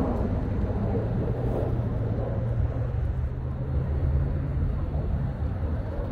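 Fighter jet flying overhead at a distance: a steady low rumble of jet engine noise.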